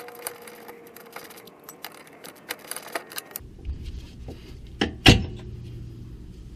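Scattered clicks of hand tools working on a car's suspension bolt, then two sharp knocks about five seconds in, the second one loud.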